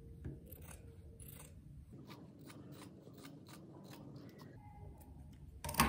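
Scissors snipping through cloth in a run of quick, irregular cuts, trimming excess fabric beside a seam. A louder knock comes near the end.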